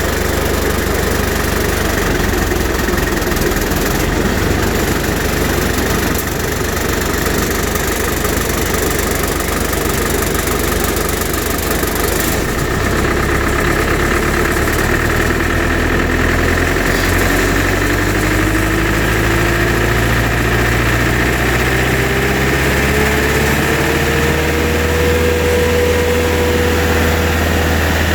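Bandit 90XP wood chipper's Cat four-cylinder turbo diesel running steadily. About halfway through, the sound changes as the clutch is engaged. A tone then climbs steadily in pitch for about ten seconds and settles at a steady pitch as the chipper comes up to speed.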